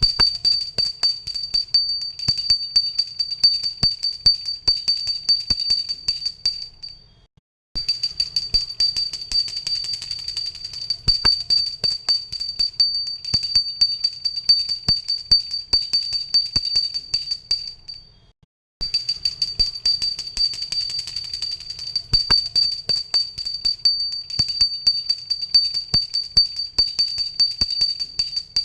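Pooja bell rung rapidly, its clapper striking over and over and the bell ringing with a steady high tone. The ringing comes in three bouts; the first two fade out and stop briefly, about seven and about eighteen seconds in.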